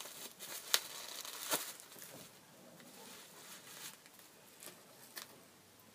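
Plastic wrapping around a doll rustling and crinkling as it is handled and unwrapped by hand, with a few sharp crackles spread through.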